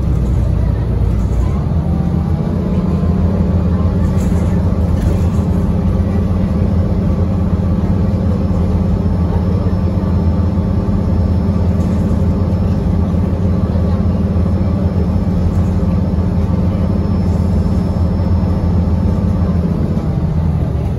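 A 2017 Gillig BRT transit bus's engine heard from inside the passenger cabin, running steadily under power with a low, even engine note. The note builds about two seconds in and eases off near the end.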